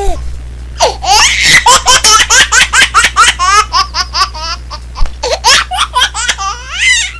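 A baby laughing in a long run of quick, high-pitched bursts, about four or five a second, starting about a second in.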